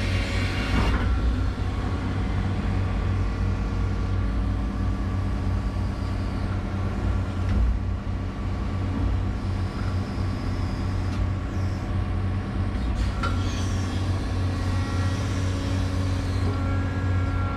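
Excavator's diesel engine running steadily under digging load, heard from inside the operator's cab, a constant low drone with steady tones from the machine over it.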